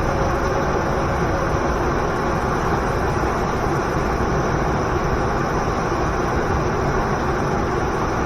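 Steady, even rush of a waterfall, unchanging throughout.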